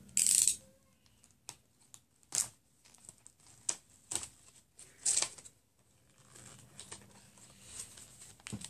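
Clear plastic parts bag being handled and torn open, with a loud crinkling rustle just after the start, then scattered short clicks and crinkles.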